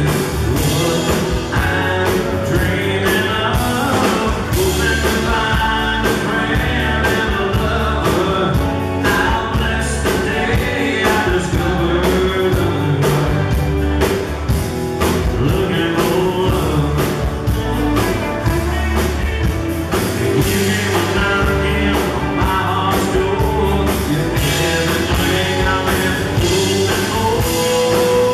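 Live band playing a rock-and-roll song: a lead vocal over electric guitars, an acoustic guitar, bass and a drum kit keeping a steady beat.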